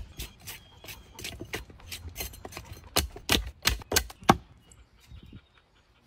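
Axe blade chopping and shaving along a wooden branch: a run of sharp wooden chops, thickest around three to four seconds in and stopping about five seconds in.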